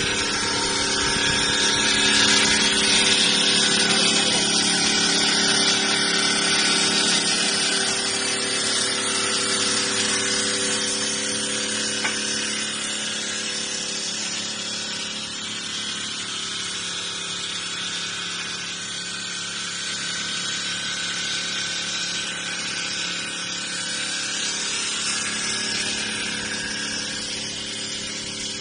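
An FRT600 stone bridge saw cutting a stone slab with its diamond blade: a steady motor hum under the hiss of the cut. It is loudest in the first several seconds, then a little quieter.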